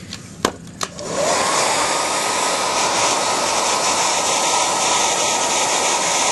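A couple of sharp clicks, then a handheld hair dryer switched on about a second in, its motor whine rising as it spins up, then blowing steadily. It is heating the contact cement under the phone's glass to soften it.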